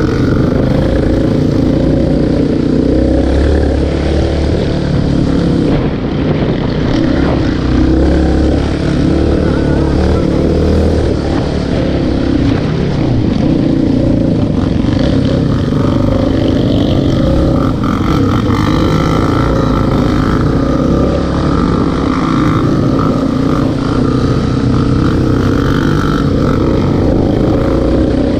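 ATV (quad bike) engine running steadily while riding a dirt track, loud and even.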